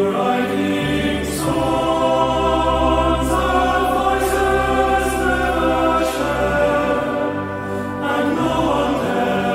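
Choir in Gregorian-chant style holding long, wordless chords, with a deep bass note entering about a second in.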